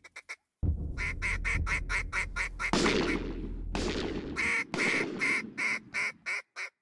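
A rapid run of duck quacks, about five a second, over a low rumble, with two falling whooshes in the middle.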